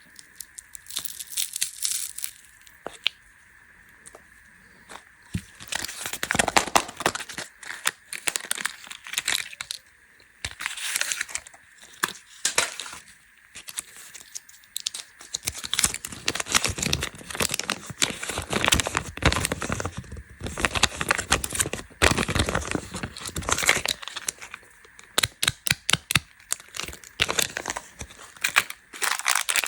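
Plastic candy wrappers being crinkled and torn open, in irregular bursts of sharp crackling.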